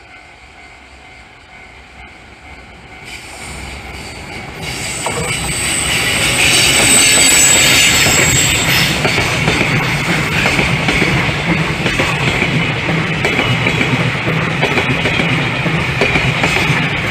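Freight train hauled by an EF210 electric locomotive approaching and passing. The rail noise builds from about three seconds in and reaches full level by about seven seconds. The wagons then run past steadily, with a high wheel squeal between about six and nine seconds in.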